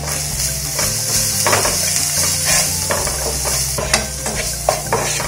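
Onions and spices frying in mustard oil in a non-stick pan, sizzling steadily while a spatula stirs and scrapes through them, with short sharp knocks of the spatula against the pan.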